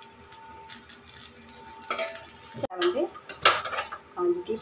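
Steel spoon clinking and clattering against metal cookware on the stove. There are a few ringing clatters in the second half, the loudest about three and a half seconds in, over a faint steady hum.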